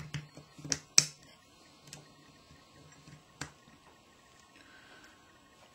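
A few sharp clicks and taps as a retaining ring is pried out of a 7075 series shower valve body, the loudest about a second in.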